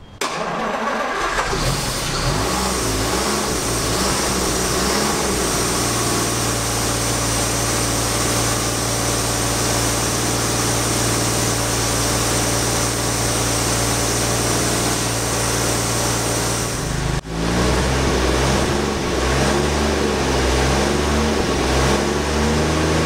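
1949 Rover P3's inlet-over-exhaust petrol engine starting up for the first time in about 28 years. It settles into a steady run, and after a brief break about seventeen seconds in, its note wavers up and down.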